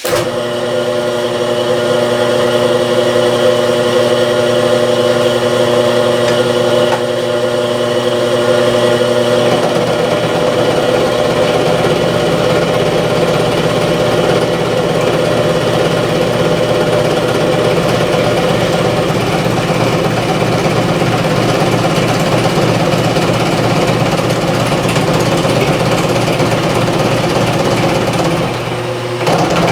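Metalworking machine tool running steadily while machining a V-groove into a half-inch-thick steel plate. It starts abruptly, and about ten seconds in its steady hum turns rougher and noisier, dipping briefly near the end.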